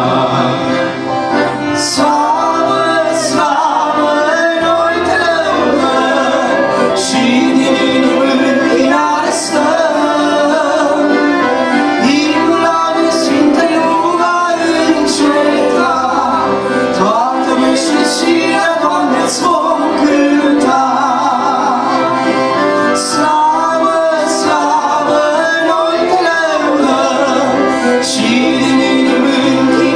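Live Romanian gospel song: an accordion with the band and singing. Bright hits come every second or two over steady bass notes.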